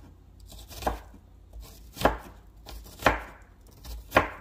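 Kitchen knife dicing an onion on a wooden cutting board: four separate chops about a second apart, with a few lighter taps between.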